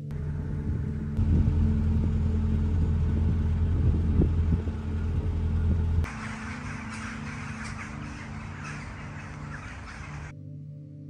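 Outdoor ambience: a low rumble for about the first six seconds, then birds chirping for about four seconds. Soft background music with steady held notes runs underneath.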